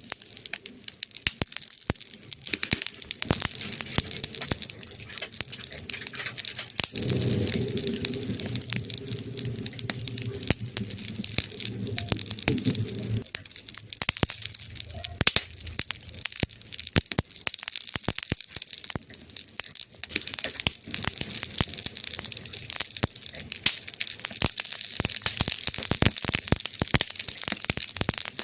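Wood fire crackling: a steady hiss with dense snaps and pops throughout. A low drone joins for about six seconds, starting about a quarter of the way in.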